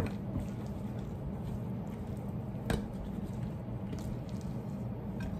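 Hands rubbing and turning raw, marinated corvina steaks on a ceramic plate: soft wet squishing. There are two light clicks, one at the start and a sharper one a little past halfway, over a steady low hum.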